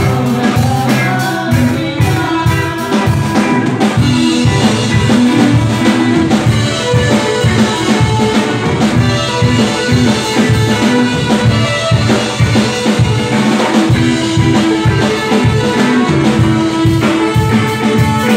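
Live band playing a song: a drum kit keeps a steady beat under keyboard and electric guitar.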